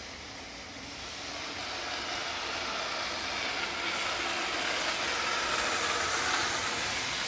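Car moving with its loose plastic belly pan dragging on the road, giving a droning, scraping noise that grows louder over the first few seconds and then holds steady. The sound is the sign of the underbody panel come loose and touching the ground.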